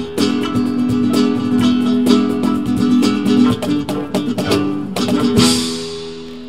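Guitar-led live music with sharp percussive hits, ending on a final accent with a bright crash about five seconds in; the last chord then rings out and fades.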